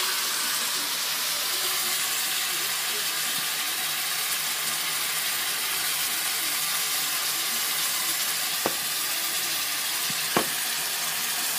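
Shrimp, sator beans and minced pork with shrimp paste sizzling steadily in a wok. Two brief knocks come about three-quarters of the way through and near the end.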